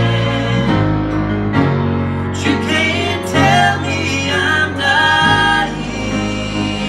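Live gospel song with grand piano accompaniment and a man singing through a microphone, his held notes wavering.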